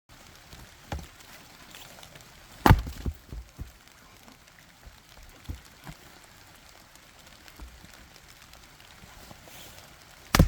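Firewood being chopped: two hard blows about eight seconds apart, the first followed by a few lighter knocks of wood.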